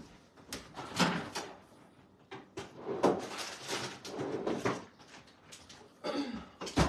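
Kitchen door-and-handling sounds: a door opened and shut among a string of knocks, clunks and rustles as food is fetched. The sharpest knock comes near the end.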